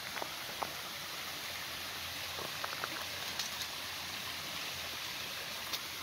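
Steady rushing hiss of a small stream running over rocks, with a few light crunches of footsteps on a gravel path.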